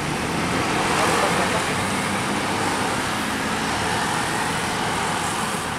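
Steady road traffic noise: motorcycles, cars and a minibus driving past, engines and tyres.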